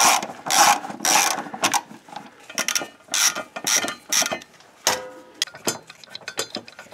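Hand ratchet with a 13 mm socket loosening a transmission-mount bolt: repeated bursts of ratchet clicking, about two strokes a second, turning to lighter, scattered clicks in the last couple of seconds.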